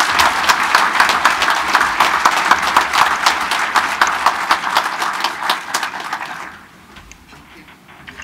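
Audience applauding, dying away about six and a half seconds in.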